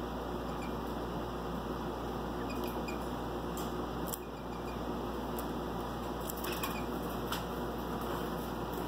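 A Waterslager canary's wings fluttering as it hops between perches in a wire cage, with a few short taps over a steady background hiss.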